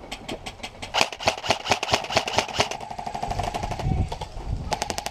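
Airsoft electric rifle firing rapid strings of shots, about seven a second for nearly three seconds, then another short string near the end. In between comes a stretch of low rumbling.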